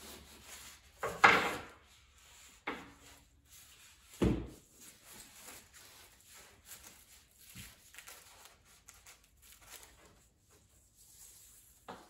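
A metal drywall T-square and a rigid foam insulation board being handled on a wooden table: light rubbing and sliding, with a scraping knock about a second in and a low thump about four seconds in, plus a few smaller knocks.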